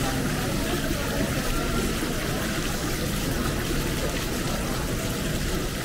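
Steady outdoor town ambience: an even, continuous wash of noise with no distinct events.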